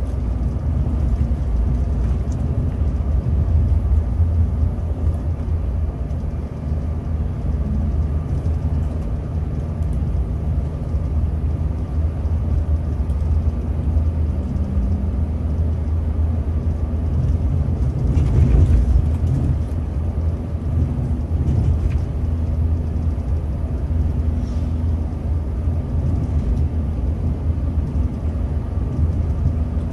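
Scania K360 coach under way, heard from inside the driver's cab: a steady low rumble from its 13-litre DC13 inline-six turbo-diesel mixed with road noise. The rumble swells briefly about two-thirds of the way in.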